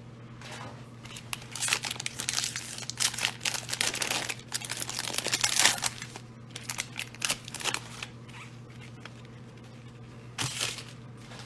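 Plastic wrapper of a Donruss football card pack being torn open and crinkled by hands in nitrile gloves: a dense run of crackling from about a second in to about six seconds, then a few shorter rustles. A steady low hum lies underneath.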